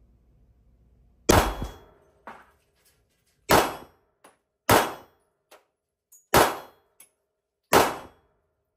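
Five semi-automatic pistol shots fired one at a time at a slow, deliberate pace, one to two seconds apart, each with a short echo off the walls of an indoor range. Fainter clicks fall between some of the shots.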